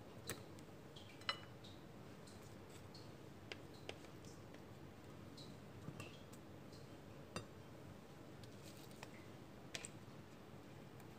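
Faint, irregular light clicks and clinks, the loudest about a second in, as sliced vegetables are laid into a glass baking dish, over a steady low room hum.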